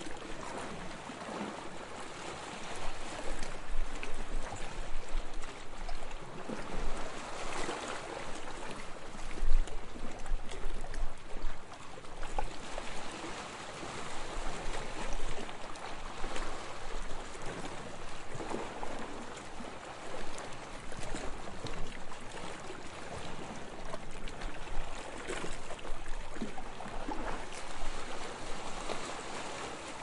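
Calm waves lapping: a continuous wash of moving water with irregular small surges every few seconds.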